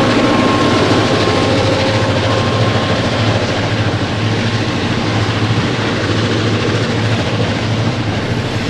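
Loaded grain hopper wagons rolling past at speed, steel wheels clattering and rumbling on the rails, over a steady low drone from the train's diesel-electric locomotives just ahead. The sound eases slightly as the train goes by.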